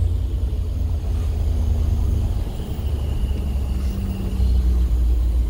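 Bus engine and road noise heard from inside the bus's cabin as it drives along a wet road: a steady low rumble.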